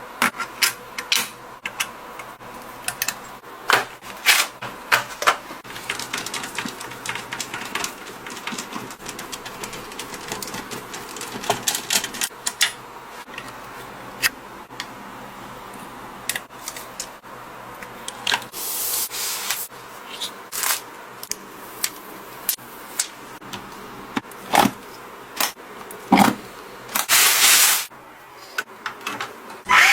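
Irregular clicks, taps and small knocks of computer parts being handled and fitted, with a couple of longer rustling scrapes, one about two-thirds of the way through and one near the end.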